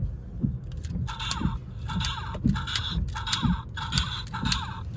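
Electronic music with a steady beat of about two pulses a second; a repeating synth figure comes in about a second in.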